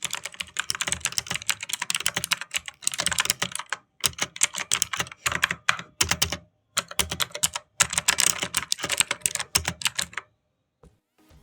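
Typing on a Cosmic Byte Vanth CB-GK-27 mechanical keyboard with clicky blue switches: rapid keystrokes in runs of a second or two with short pauses between, stopping about ten seconds in.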